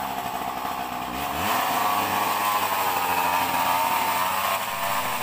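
A small motor running steadily, loud and buzzing.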